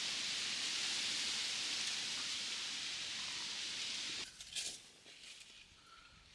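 A steady outdoor hiss that cuts off suddenly about four seconds in, leaving a quieter background with a few faint rustles and clicks.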